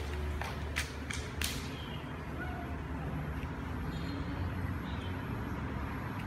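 Outdoor background noise: a steady low rumble, with several sharp clicks in the first second and a half.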